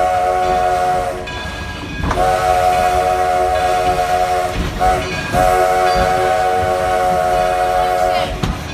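Steam locomotive whistle sounding a long blast, a short blast and a final long blast, the end of the long-long-short-long pattern of a grade-crossing signal, each blast a steady chord of several notes. Under it runs the rumble of the train's cars on the track.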